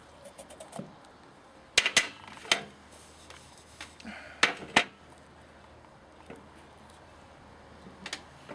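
A few sharp knocks and clicks as the opened coconut and the Leatherman Blast multi-tool are handled: a pair about two seconds in, another pair at about four and a half seconds, and one more near the end.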